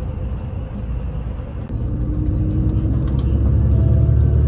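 Road and engine rumble heard from inside a moving vehicle on an expressway, growing louder about two seconds in, with a faint steady whine over it for a second or so.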